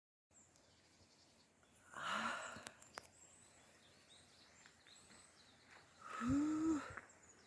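Quiet outdoor ambience, broken twice about four seconds apart by a short wordless voice sound, each a brief pitched rise and fall.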